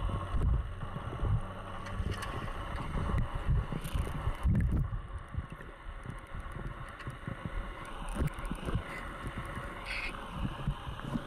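Muffled underwater sound of a dog paddling in a swimming pool: irregular low thumps from its strokes and water sloshing over the submerged camera.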